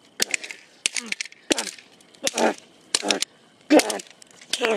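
Repeated hammer blows cracking and breaking small plastic cases against asphalt, about eight sharp hits, with short bursts of voice among them.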